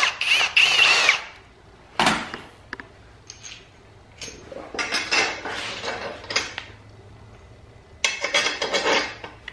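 Cordless drill running with a wavering whine as the bit opens up a hole in a small steel part, stopping about a second in. A single clank follows a second later, then metal parts scrape and clink as a bolt is fitted through the bracket and bearing.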